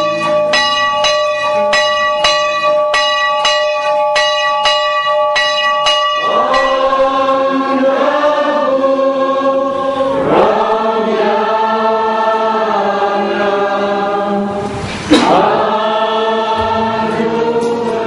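Music: for about six seconds an instrument plays evenly repeated notes over held tones, then a choir sings with many voices. About fifteen seconds in there is a brief, sudden loud sound.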